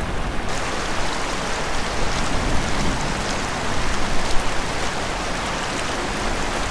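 Steady rush and splash of a shallow, fast river as two people wade across it.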